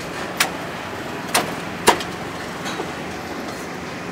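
Steady street traffic hum with four sharp clacks of utensils over about two and a half seconds, the loudest about two seconds in.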